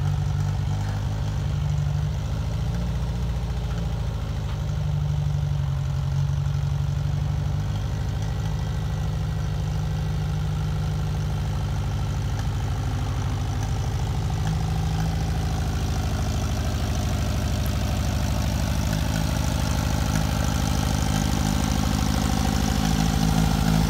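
Satoh ELK compact tractor's engine running steadily while it is driven, a low even hum that grows a little louder near the end as the tractor comes close.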